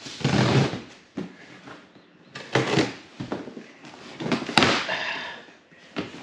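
A long cardboard shipping box being opened by hand: packing tape cut and cardboard scraped and rustled in several short bursts, with a sharp click about four and a half seconds in.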